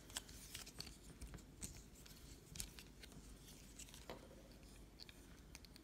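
Near silence with faint, scattered clicks of plastic parts on a Transformers Swoop action figure being handled and moved through its transformation, with a slightly louder click about four seconds in.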